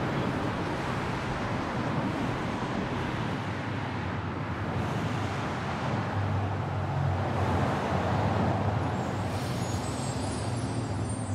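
Steady low rumble of road vehicle and traffic noise, with faint high ringing tones coming in near the end.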